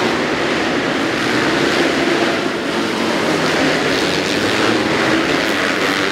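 Several motocross bikes' engines running hard together inside an indoor arena, blending into a steady, loud, even wash of engine noise.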